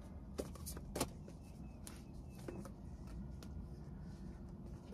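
Faint steady low hum of room noise with a few soft, scattered clicks and taps, the clearest about a second in.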